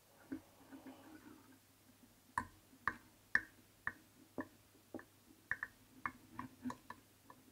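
Faint, sharp ticks about twice a second, after soft rustling at the start, as tying thread is wound by hand into the whip-finish knot at the head of a wet fly.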